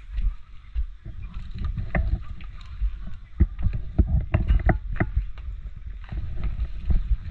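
Movement noise from a player's worn camera: a low rumble from the microphone being buffeted, with irregular knocks and rustles as gear moves.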